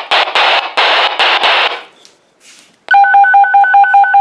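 Rapid train of short dual-tone beeps over a radio scanner, about eight pulses at roughly six a second, starting about three seconds in: a DTMF-style paging/alert tone on a fire-dispatch radio channel. Before the beeps there is a stretch of noisy radio audio.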